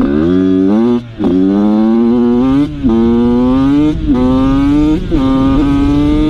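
Pit bike's single-cylinder engine accelerating hard up through the gears. The engine note climbs steadily in each gear and drops briefly at each upshift, four times.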